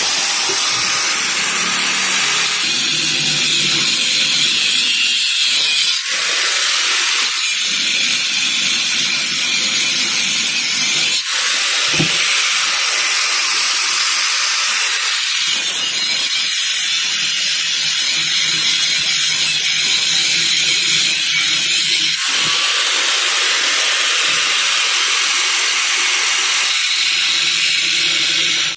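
Angle grinder with a cutting disc grinding through the steel shell of a fridge compressor: a loud, steady, high-pitched grind that eases off briefly about 6, 11 and 22 seconds in.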